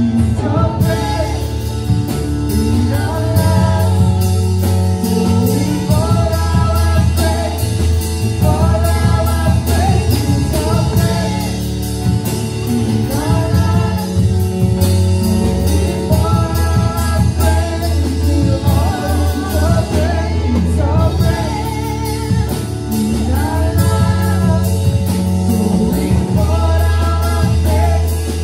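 Worship band playing with singing, over a steady beat and a strong bass line.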